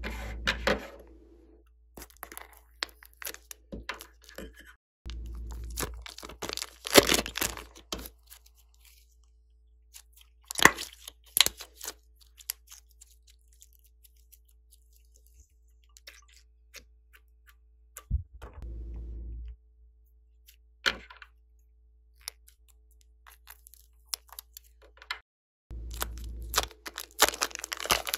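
Hands working glossy slime and soft clay: squeezing clay from a plastic piping bag and stretching and pressing the sticky slime. It gives clusters of crackling and sharp clicks, with quiet stretches between them. Near the end, a plastic bag crinkles as clay is squeezed inside it.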